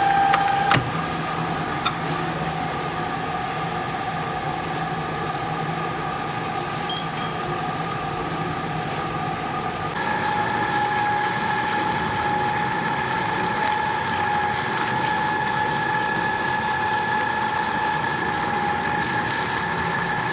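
Heavy machine-shop lathe running steadily: a constant mechanical hum with a high whine. A short rattle comes about seven seconds in, and about halfway through the whine shifts to a different pitch and gets slightly louder.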